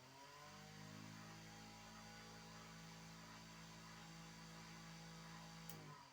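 AVS-8048 12-volt 8-inch car fan's motor humming, rising in pitch as it comes up to speed in the first second, then running steadily. Near the end a switch clicks and the hum falls in pitch as the fan winds down.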